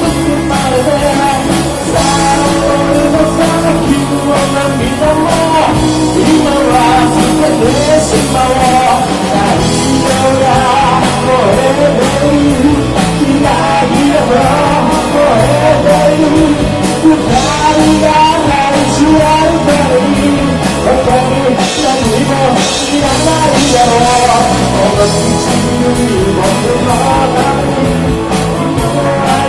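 Rock band playing live with a singer: electric guitars, bass and drum kit under a sung melody, loud and steady throughout.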